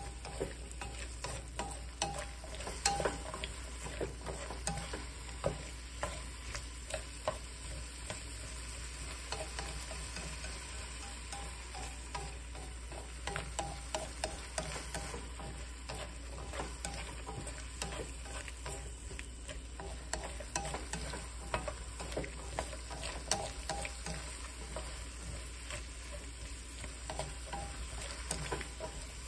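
Sliced bitter melon and garlic sizzling in oil in a nonstick wok, stirred with wooden chopsticks that tap and scrape against the pan in scattered clicks.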